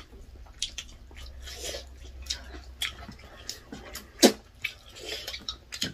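Close-up eating sounds of people eating rice and chicken with their hands: chewing and wet mouth clicks, with fingers working food on the plates. A string of short irregular clicks, one louder than the rest a little after four seconds in.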